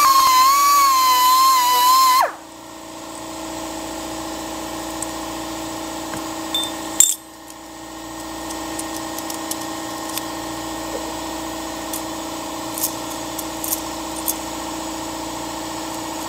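Handheld high-speed rotary tool grinding out the bore of an old tapered-roller pinion bearing, its whine wavering in pitch as it loads and unloads, stopping suddenly about two seconds in. A quieter steady hum with a few light clicks follows.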